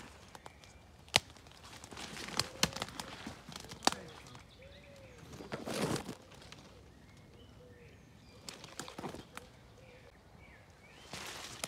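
Footsteps pushing through forest undergrowth: leaves rustling, twigs snapping sharply now and then, and a loud brush of foliage against the phone about six seconds in. Faint birds chirp in the background.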